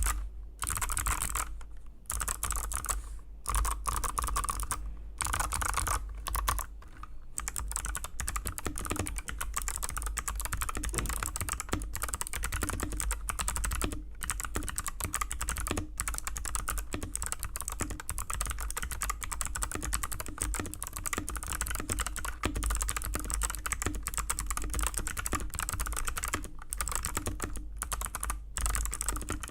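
Continuous fast typing on a mechanical keyboard with clicky blue switches, each keystroke a sharp click, broken by a few brief pauses.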